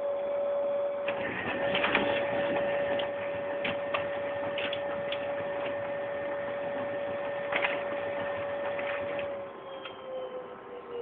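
A motor whining at one steady pitch, sliding down in pitch near the end, with scattered clicks and rattles over it.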